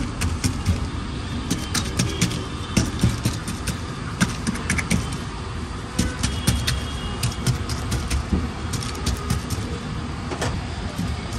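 Busy street background: a steady low rumble of traffic with frequent short clicks and knocks scattered through it.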